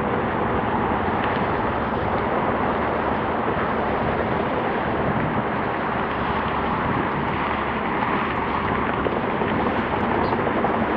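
Steady jet roar of an Airbus A380's four turbofan engines on final approach with its landing gear down.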